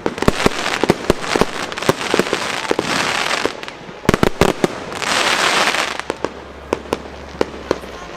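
Fireworks going off: a rapid, irregular string of sharp bangs and pops, with two stretches of dense crackling, the longer one early on and a shorter one about five seconds in.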